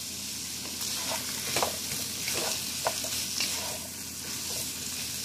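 Beef strips, onion and freshly added potato wedges sizzling in a pot as a wooden spoon stirs them. A steady hiss, with scattered short knocks and scrapes of the spoon and potatoes against the pot.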